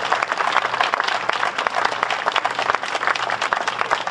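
Audience applauding, many hands clapping steadily, greeting the unveiling of a sculpture.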